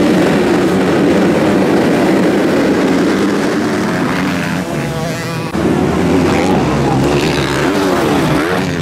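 Motocross dirt bike engines revving hard, a whole pack of them together off the start line. There is an abrupt change about five and a half seconds in, and near the end the revs rise and fall.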